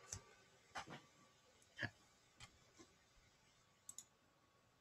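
Several faint, sharp clicks at irregular intervals over near silence, typical of handling a computer while moving on to the next slide.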